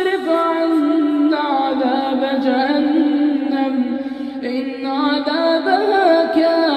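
A man chanting Quran recitation in a melodic tajweed style. He holds long drawn-out notes that shift pitch a few times.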